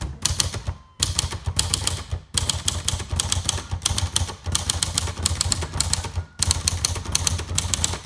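1971 Royal Sprite portable manual typewriter (Silver Seiko-built) typed on quickly: a rapid run of typebar strikes against its hard platen, several a second, broken by a few short pauses.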